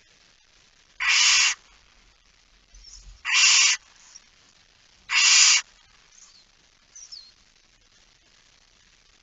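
Barn owls in a nest box giving harsh hissing calls: three noisy bursts, each about half a second long, roughly two seconds apart. Faint thin squeaks come in between.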